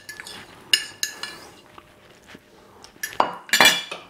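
Metal fork clinking and scraping on a ceramic plate in a few short, ringing strikes, then a louder clatter near the end as the plate with the fork on it is set down on the wooden counter.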